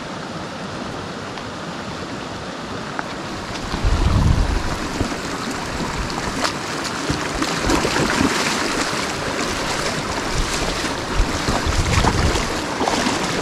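Inlet stream of an alpine lake running, a steady rush of water, with wind buffeting the microphone in two low gusts, about a third of the way in and again near the end.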